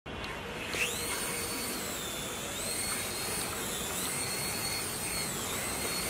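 Small toy RC helicopter's electric motors and rotors spinning up with a rising whine about a second in, then whining steadily in flight, the pitch dipping and rising a few times.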